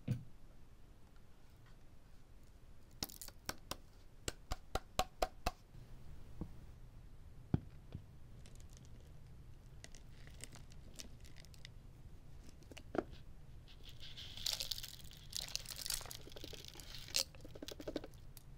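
Vacuum dust bin being emptied onto carpet: a quick string of sharp clicks, then a few seconds of rustling and crinkling near the end as packed lint and paper confetti slide out.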